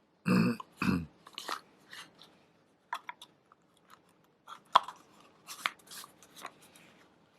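Scattered light clicks and taps from handling a straight razor, the blade and scales knocking and ticking as it is turned over and inspected. The sharpest click comes a little before five seconds in.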